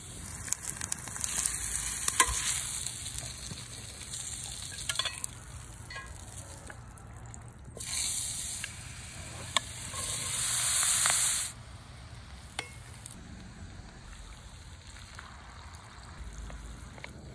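Food frying in hot oil in a cast-iron skillet over a wood fire: a steady sizzle that is much louder twice, about a second in and again near the middle, the second stretch cutting off abruptly. A few sharp clicks are heard through it.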